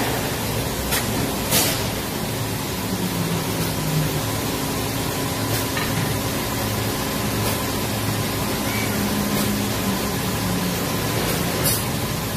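Steady machine noise from a large injection molding and takeout robot cell: a constant hiss with a faint hum underneath. A few sharp clicks or knocks stand out, about a second and a half in and again near the end.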